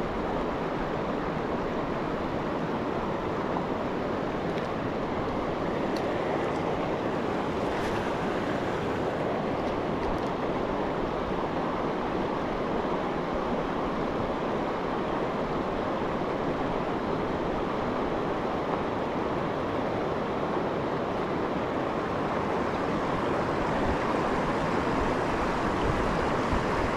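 Steady rush of river rapids, with a few faint ticks about six to ten seconds in.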